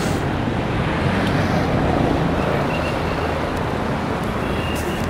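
Steady rush of road traffic crossing the bridge, mixed with wind on the microphone.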